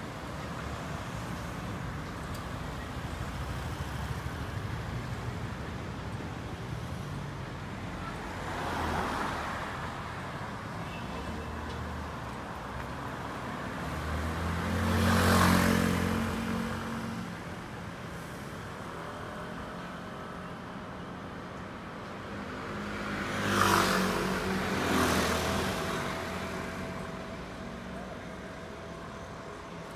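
Street traffic: a steady hum of cars and motor scooters, with single vehicles swelling up and fading as they pass close about a third of the way in, again halfway through (the loudest), and twice in quick succession near the end.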